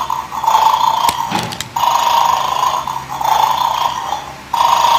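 Battery-powered toy dog from a children's bone-stealing game playing its electronic snoring sound through a small speaker, a loop that swells and fades over and over. A few sharp clicks of plastic game pieces being handled come about a second in.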